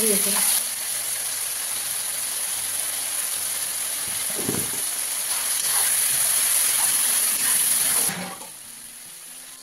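Pork frying in hot oil in a wok, a steady sizzle as a metal spatula stirs the pieces, with one low knock about halfway through. The sizzle drops away sharply about eight seconds in.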